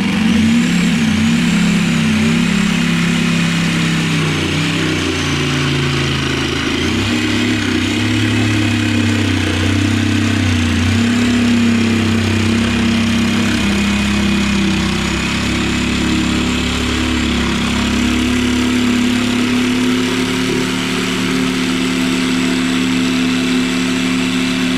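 Electric power saw running continuously as it cuts through a bass boat's fiberglass floor, its motor pitch shifting a little under load.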